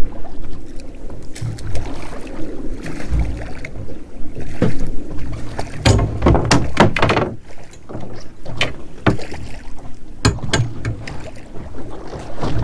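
Water lapping and slapping against the hull of a small boat, with a rapid run of sharp splashes and slaps about five to seven seconds in and a few single slaps after that.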